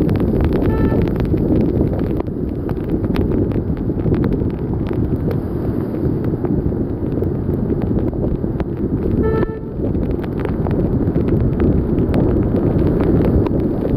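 Loud rain and wind buffeting a rain-soaked camera microphone in flooded traffic, with many sharp ticks of raindrops hitting it. A vehicle horn toots briefly twice, about a second in and again about nine seconds in.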